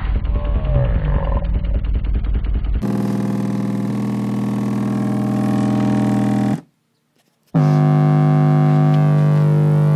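Kenwood car-audio subwoofer in a taped-up cardboard box playing heavy, pulsing bass, loud and distorted. About three seconds in the sound changes to a steady synthesizer-like bass note with overtones. That note cuts out for about a second midway and then comes back.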